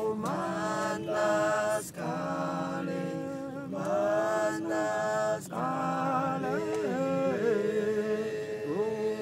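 A man singing a slow, chant-like song unaccompanied, holding long notes with brief breaks between phrases.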